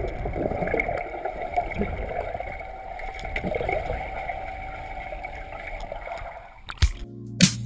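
Muffled underwater sound from a waterproof camera held beneath the surface of a swimming pool: a steady watery wash with small clicks and gurgles. Near the end it cuts off abruptly and a music track begins with sharp, evenly spaced beats.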